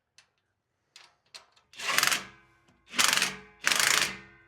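Modified 6.0 Powerstroke diesel engine revved in three loud, short bursts through a newly clamped-on exhaust elbow, after a few faint clicks.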